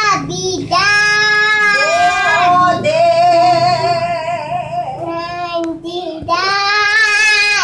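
Little girl singing long, drawn-out notes in a high child's voice, the pitch wavering on each held note, with short breaks between phrases.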